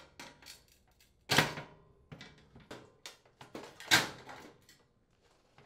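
Clicks and metallic clanks of a range warming drawer's steel slide rails being bent outward with pliers and the drawer assembly worked free. There is a scatter of small clicks, with two louder clanks about a second in and about four seconds in.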